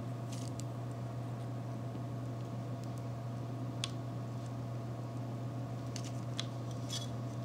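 Steady low electrical hum and room noise, with a few faint, soft ticks from a pen and plastic ruler being handled on a magazine page.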